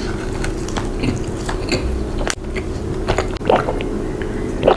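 Close-miked biting and chewing of a soft donut: wet mouth sounds with scattered small clicks.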